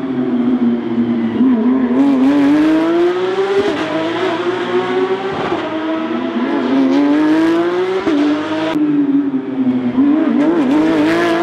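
Porsche Carrera Cup race cars' flat-six engines at full throttle going past on the circuit. The engine note climbs and drops back at each upshift, several times over, as the cars accelerate one after another.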